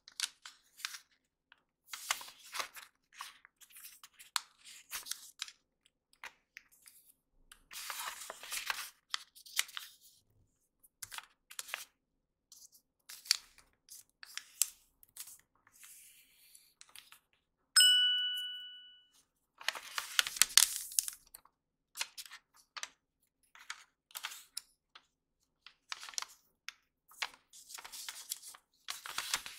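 Hands folding and creasing a sheet of origami paper: the paper rustles, slides and crackles in short strokes that come and go. About two thirds of the way through, a single clear ding rings out and fades over about a second.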